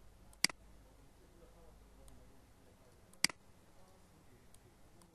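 Computer mouse clicking: a sharp click about half a second in, another about three seconds later, and a third right at the end, over faint room tone.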